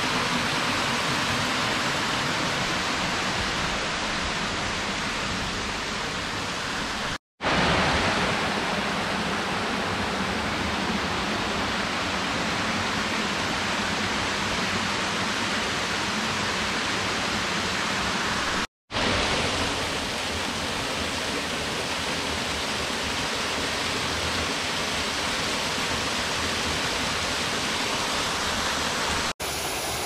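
Steady rush of water from a woodland burn cascading over rocks and small waterfalls. The sound breaks off for an instant twice, about a quarter and about two-thirds of the way through.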